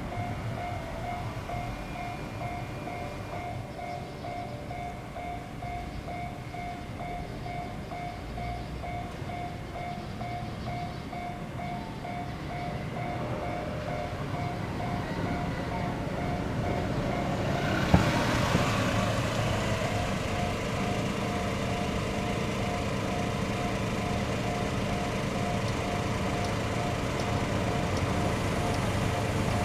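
Japanese railway level-crossing alarm ringing in a steady, rapid string of bell tones. A train approaches from about halfway through and passes with a sharp clack at about 18 seconds, followed by steady rolling noise under the bell.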